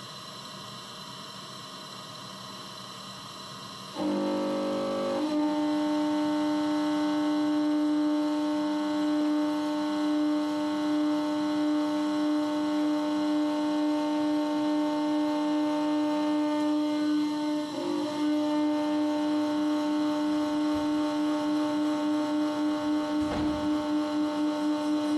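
Large rotating-disc generator rig with a faint steady hum at first, then a much louder steady pitched machine hum that starts suddenly about four seconds in. The hum dips briefly about two-thirds of the way through and pulses in loudness near the end.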